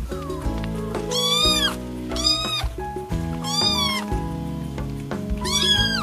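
AI-generated sound effect of kittens meowing: four separate meows, each rising then falling in pitch, over background music.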